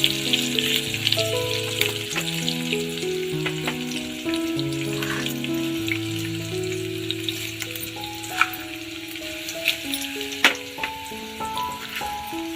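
Food frying in hot oil, a steady crackling sizzle, with a few sharper clicks in the second half. Background music of long held notes plays under it.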